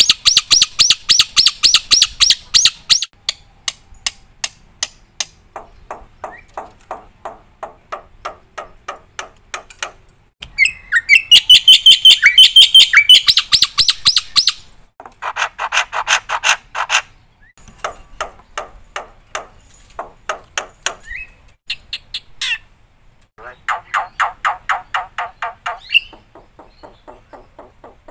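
Black-winged starling (jalak putih) singing in long runs of rapid, harsh repeated notes, with short pauses between phrases. Some phrases are high and loud, others lower-pitched, as it strings together a varied song full of mimicked phrases.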